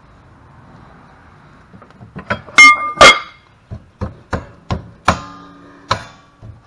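Metal parts clanking and knocking against each other, about eight irregular strikes, a few of them ringing briefly. The loudest two come about two and a half and three seconds in.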